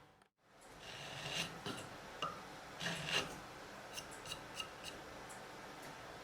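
A small hand tool being handled: a few short scrapes and rubs, then several light clicks.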